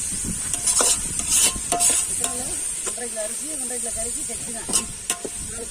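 A metal ladle stirring and scraping in a cooking pot while the food in it sizzles with a steady hiss, with a handful of sharp scrapes against the pot.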